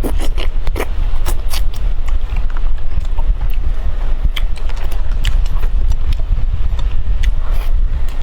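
Close-miked eating of braised fish: irregular wet clicks and smacks of chewing and lips, over a steady low rumble that is the loudest part of the sound.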